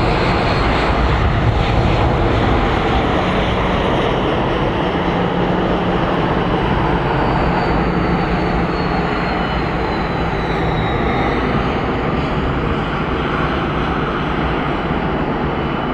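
Wide-body jetliner's engines at takeoff thrust during its takeoff roll: a steady, loud roar with a faint high whine that slowly falls in pitch.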